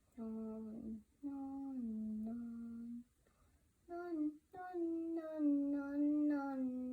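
A child's voice singing a short wordless tune in held notes, in three phrases with a brief pause after about three seconds.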